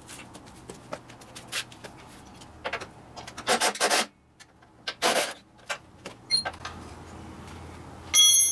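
Tools and metal parts scraping and rubbing on a lawn tractor being taken apart: several short scrapes, the loudest about three and a half and five seconds in. Near the end a sharp metal clank rings briefly.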